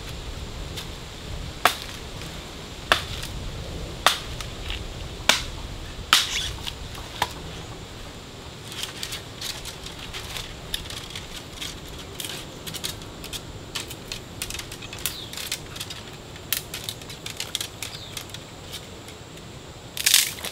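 Wood being worked by hand: five sharp knocks on a wooden pole about a second apart, then lighter crackling of dry twigs and leaf litter, with a louder crack near the end.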